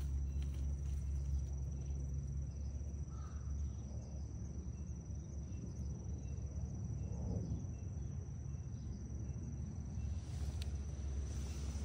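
Insects, likely crickets, trilling in one steady high tone, over a low steady background noise.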